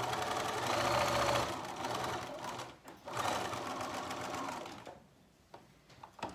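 Electric sewing machine running a straight stitch along a zip, in two runs with a brief stop about three seconds in; it stops about five seconds in, followed by a few small clicks.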